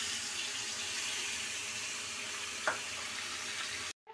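Pomfret fish pieces frying in hot mustard oil, a steady sizzling hiss with one short louder sound a little after halfway. The sizzle cuts out abruptly just before the end.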